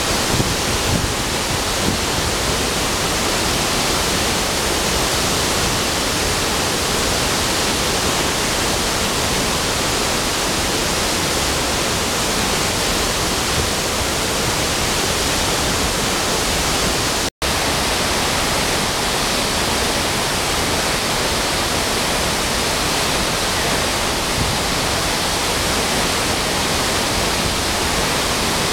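La Fortuna waterfall plunging into its pool: a loud, steady rush of falling water. The sound drops out for an instant about two-thirds of the way through.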